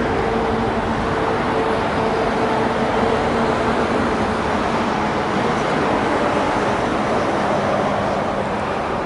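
Steady road traffic noise, an even continuous wash with no single vehicle standing out, with a faint hum that fades out about halfway through.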